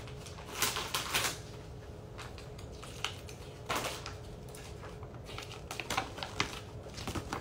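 Paper being handled: scattered crinkles and light taps, with louder rustles about a second in and near four seconds.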